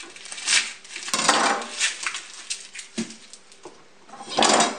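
A large kitchen knife cutting a garlic bulb free on a cutting board: a string of sharp knocks and short scrapes of the blade and bulb against the board, the longest and loudest near the end.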